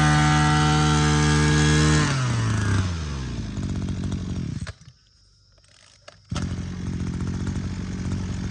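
Maruyama two-stroke brush cutter engine running at high revs. About two seconds in the throttle is released and the revs fall to idle. It stops at about the halfway point, and about a second and a half later it is idling again.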